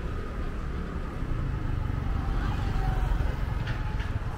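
Road traffic on a busy city boulevard: a steady low rumble of passing vehicles that swells about three seconds in.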